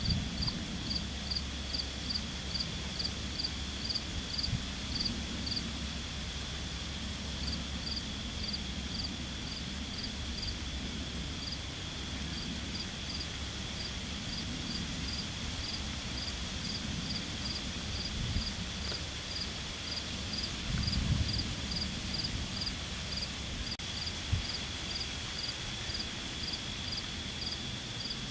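Crickets chirping evenly at about two to three chirps a second over a steady high insect trill, with a low rumble underneath. A brief louder low sound comes about three-quarters of the way through.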